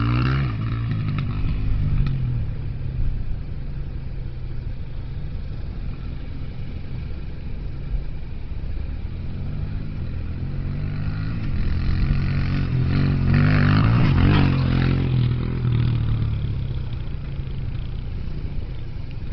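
Suzuki DR-Z125 dirt bike's small four-stroke single-cylinder engine running as it is ridden around, its pitch rising and falling with the throttle. It grows louder for a few seconds about two-thirds of the way through, then fades again.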